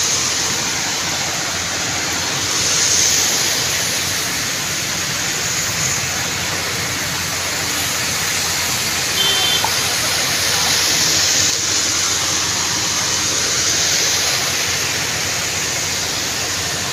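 Steady rushing hiss of heavy rain and floodwater flowing along a flooded street, swelling a little now and then.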